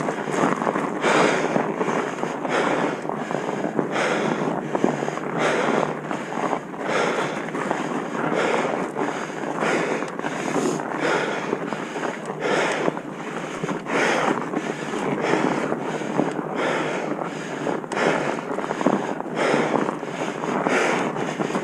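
Steady wind noise buffeting a moving microphone, with frequent irregular knocks and rattles throughout.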